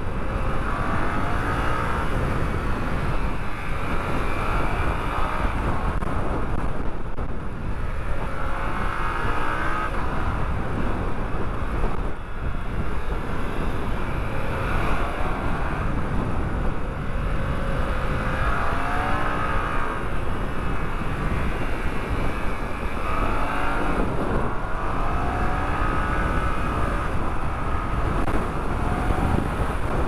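Yamaha MT-07's 689 cc parallel-twin engine running under way, its revs climbing and dropping several times as the rider opens and closes the throttle, over a steady low rumble.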